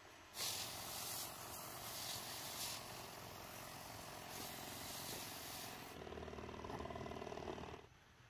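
Backpack sprayer spraying pesticide onto a young orange tree: a steady hiss of spray starts about half a second in, turns into a buzzing hum about six seconds in, and stops shortly before the end.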